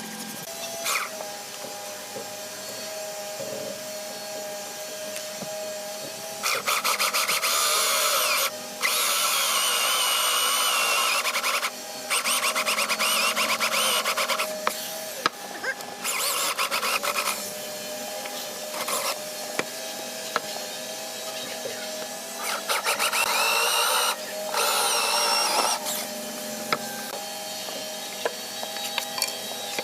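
A handheld electric power tool working wood, running in repeated spells of two to three seconds that start and stop abruptly. Short pauses separate the spells, and a steady lower hum continues underneath.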